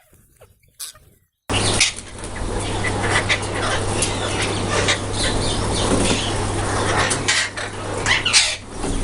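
Parrots flapping their wings and calling, starting abruptly about a second and a half in, over a steady low hum.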